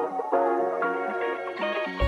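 Instrumental background music: gentle plucked or struck melodic notes, a new note every half second or so.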